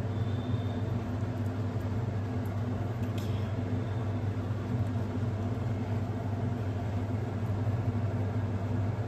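Steady low droning hum, even in level throughout, with a faint click about three seconds in.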